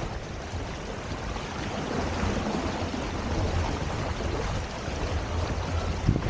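Steady rush of water past the hulls of a Hobie Tiger F18 sailing catamaran under way.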